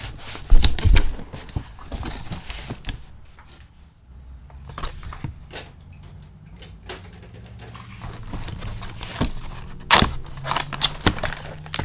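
Cardboard box and moulded pulp packaging being handled: irregular knocks, scrapes and crinkling of plastic wrap, with a loud thump about half a second in and a few sharp knocks around ten seconds in.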